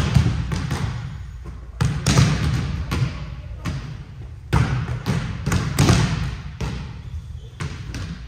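A volleyball being hit and bouncing on a gym floor: a string of sharp slaps and thuds at irregular intervals.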